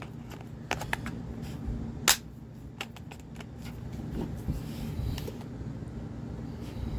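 A few sharp small clicks and soft rattles of hands handling a revolver, the loudest about two seconds in: rubber steel balls being loaded into the TR68 CO2 revolver's shells and cylinder before firing.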